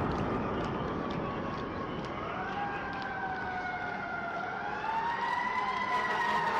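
Emergency vehicle siren wailing over city street noise, its pitch rising and falling slowly and growing louder about five seconds in.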